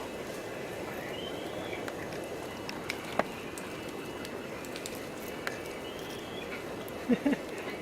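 Outdoor ambience: a steady rushing noise with a few sharp clicks and faint, short high chirps. Two brief low sounds come near the end.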